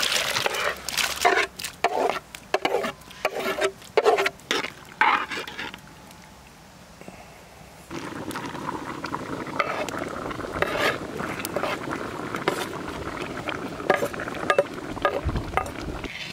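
A metal spoon scraping chopped onion and carrot off a wooden board into a metal cauldron, in a quick run of scrapes and knocks. After a brief lull, about eight seconds in, comes a steady noise of the soup boiling in the cauldron as a ladle stirs it, with small knocks.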